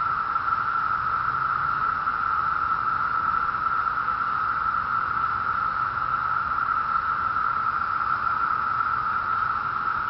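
Chorus of 17-year periodical cicadas: a steady, unbroken drone.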